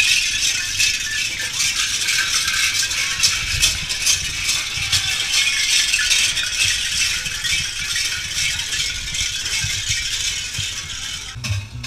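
Large Krampus bells worn by a pack of Krampus and Perchten, clanging and jangling as they run past: a loud, dense din of many bells that thins out near the end.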